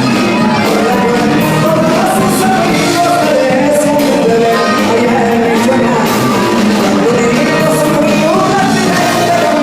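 Live band music with a singer, loud and continuous, carrying the echo of a large room.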